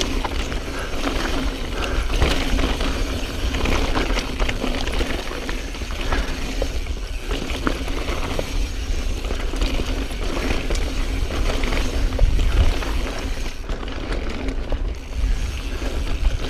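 2016 Specialized Stumpjumper S-Works 27.5 full-suspension mountain bike descending rocky singletrack at speed: tyres rolling over rock and the bike rattling with frequent small clicks and knocks, over a steady low rumble of wind on the microphone.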